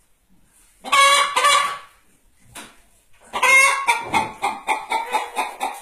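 A hen cackling: a loud drawn-out call about a second in, then after a short pause another long call that runs into a quick string of clucks, about five a second.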